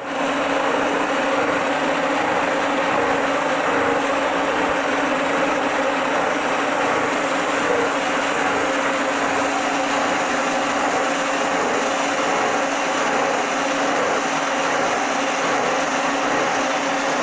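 Metalworking machine tool running steadily under power, with a faint regular pulse a little more often than once a second.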